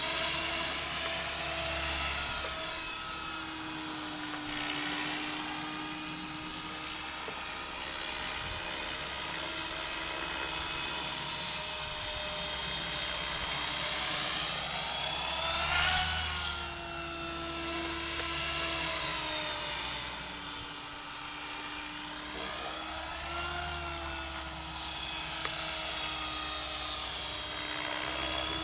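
Align T-Rex 500 electric RC helicopter in flight: the steady high whine of its brushless motor and gearing over the rotor noise, its pitch wavering as it manoeuvres. The pitch rises sharply and falls away about halfway through, and again a few seconds later.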